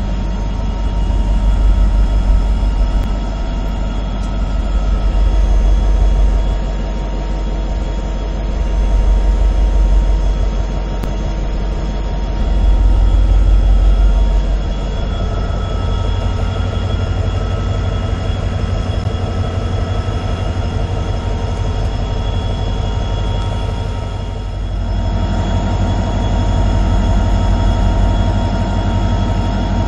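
A WDP4D diesel-electric locomotive's EMD 16-cylinder two-stroke engine running, heard inside the cab at low speed: a steady drone with several held tones. It swells and eases about every four seconds through the first half, and grows louder near the end.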